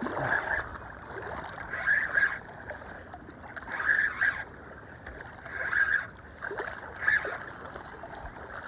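Spinning reel cranked in spurts while a hooked catfish is reeled in, about five short bursts a couple of seconds apart, with water lapping and splashing at the bank.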